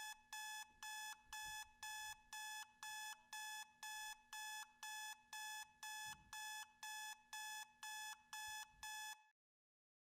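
Electronic alarm clock beeping in a fast, even series of short beeps, about three a second. The beeping cuts off suddenly about nine seconds in.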